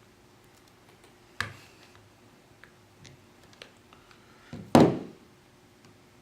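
Sharp clicks and knocks of a plastic prying tool against a phone's glass and frame while the screen is being pried up: one knock about a second and a half in, a few light ticks, and a louder knock near the end.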